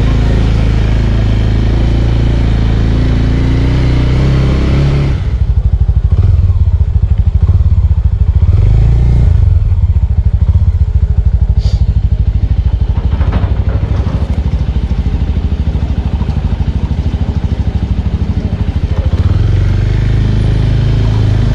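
Small Suzuki motorcycle's engine running while the bike is ridden, with wind rushing over the microphone for the first five seconds. It then settles into a low, pulsing engine note at slow speed, with a sharp click about halfway through.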